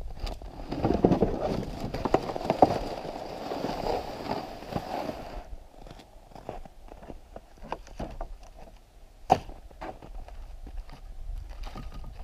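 Footsteps crunching in snow close by for the first five seconds or so, then scattered light crunches and knocks, with one sharp knock about nine seconds in.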